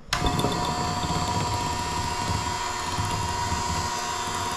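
Electric hand mixer switched on, its motor running with a steady whine as the beaters churn a block of cream cheese with eggs and vanilla in a glass bowl. It starts suddenly right at the beginning.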